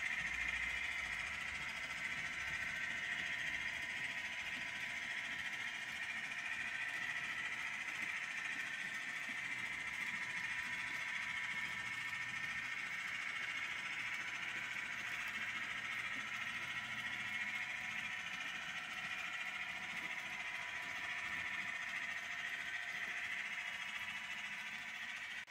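Model railway train with a long string of wagons running on the layout's track: a steady rolling whirr of many small metal wheels on rails with the locomotive's motor, holding an even level with no stops or jolts.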